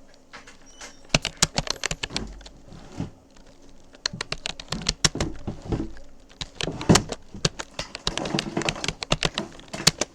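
Rapoo computer keyboard being typed on: quick, irregular runs of key clicks with a brief lull about two to three seconds in.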